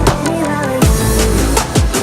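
Background music: electronic track with a heavy bass line and a drum beat.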